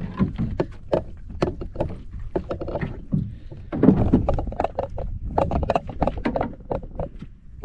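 Water slapping and knocking against the hull of a small outrigger boat, a quick, irregular run of short slaps over a low rumble of wind and sea.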